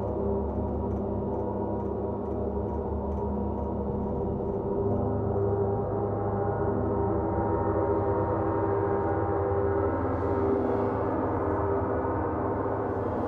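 Large gongs played with a soft mallet in a gong bath: a dense, sustained wash of many overlapping ringing tones that swells in its lowest register about five seconds in.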